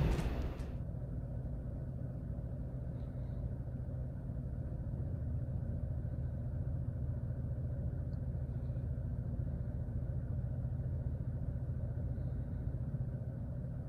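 Steady low hum of an idling car engine. The rumble of a passing freight train fades out in the first second.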